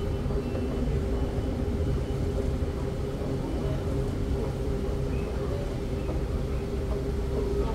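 Escalator running: a steady low rumble with a constant hum.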